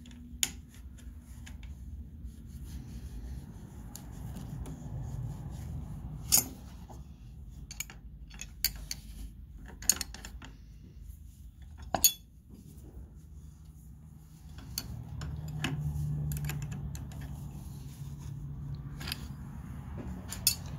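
Sharp metal clinks and clicks of steel collet wrenches against the router's collet nut and bit as the bit is swapped and the nut tightened. They come singly, a few seconds apart, over a low rumble.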